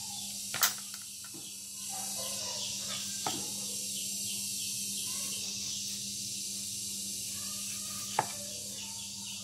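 Cleaver knocking into a wooden chopping block as a mango and its stone are split: three sharp knocks, about half a second in, just after three seconds and about eight seconds in, over a steady hiss and low hum.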